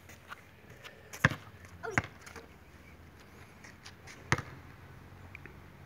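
A basketball striking the concrete court and hoop: three sharp thuds, about a second in, at two seconds and past four seconds, the first the loudest.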